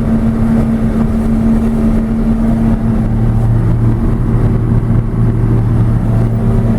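John Deere 6620 sidehill combine running while harvesting corn: a steady, loud engine and machinery drone, with a lower hum that strengthens about three seconds in.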